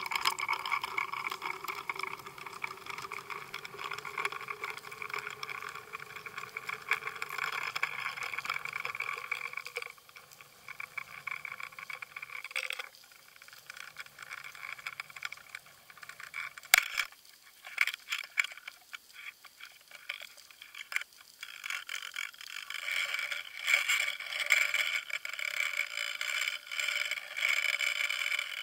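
The underwater fishing camera's own sound track from inside its housing at depth: a steady high-pitched hum over rushing water noise, weakening after about ten seconds. From about 17 seconds in, a scatter of sharp clicks and knocks comes in, and the hum and noise grow again near the end.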